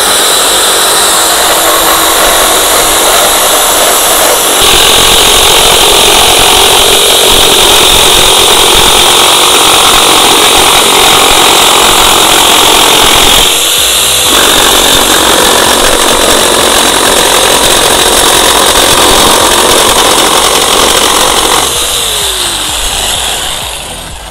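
ZY-1200 electric jigsaw cutting straight through wood, its motor and reciprocating blade running loud and steady. It briefly eases about halfway through, then runs on and winds down near the end as the cut finishes.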